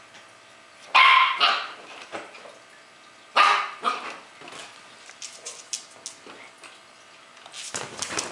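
A dog barking: two loud barks, about a second in and again about three and a half seconds in, with fainter sharp sounds between and after.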